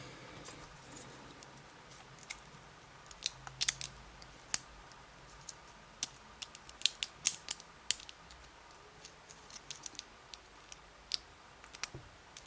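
Small metal clicks and taps of a pick and other tools working on a pin-tumbler lock cylinder, coming irregularly and most thickly in the middle.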